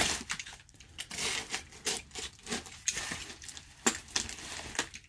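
Box cutter slicing along the packing tape on a cardboard box, in short irregular scrapes and clicks.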